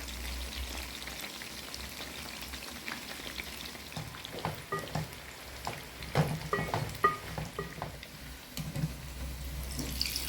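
Chicken and cashew pakodas frying in sunflower oil in a pan, with a steady sizzle. From about four seconds in, a utensil clinks and scrapes against the pan several times.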